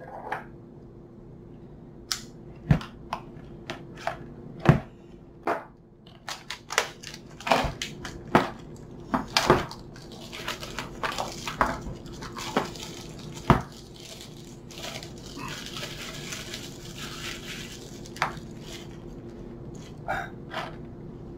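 Hard clear-plastic organizer case handled and unwrapped by hand: a run of sharp plastic clicks and knocks, some against a wooden tabletop, with a stretch of crinkling plastic in the middle.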